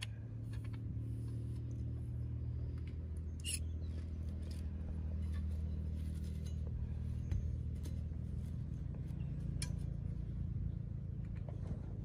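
An engine running at a steady speed, a low even hum, with a few faint light clicks over it.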